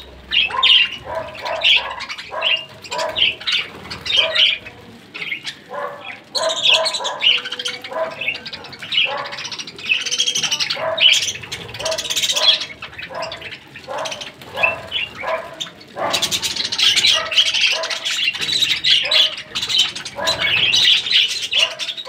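A flock of budgerigars chattering, chirping and squawking while feeding on seed. The many short overlapping calls become denser about three quarters of the way through.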